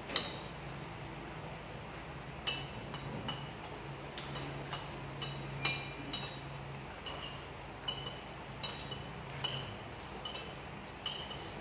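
Spoons clinking against ceramic bowls and plates during a meal: about a dozen light, irregular clinks, each with a brief ring.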